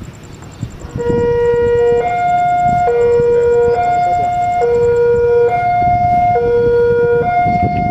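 Electronic two-tone warning alarm, starting about a second in and alternating between a low and a high tone, each held just under a second: the kind of alarm sounded at an Indonesian railway level crossing as a train approaches.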